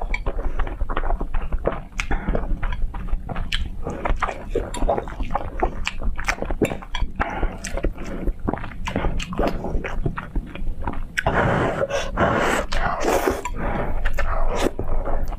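A person eating saucy instant noodles close to the microphone: wet chewing, lip smacks and slurps in a dense run of short clicks, with a longer slurp about eleven seconds in.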